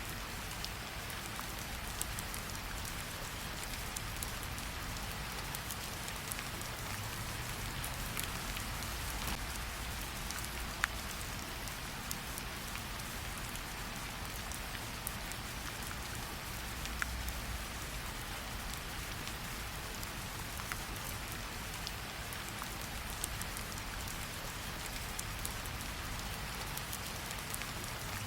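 Steady rain falling, with a campfire crackling now and then: sparse sharp pops over the even hiss of the rain, the loudest about eleven seconds in.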